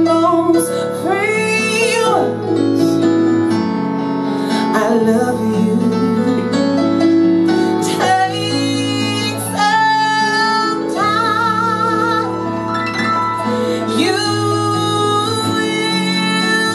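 Live jazz song: a woman singing with instrumental accompaniment, holding some notes with a wavering vibrato.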